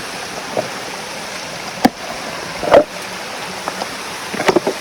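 Waterfall rushing steadily, with a few sharp knocks about two and three seconds in and a quick cluster of them near the end.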